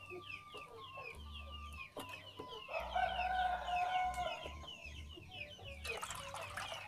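A rooster crows once, a long held call about three seconds in, over continual quick high chirps. Near the end, muddy water is poured through a plastic sieve into a metal wok.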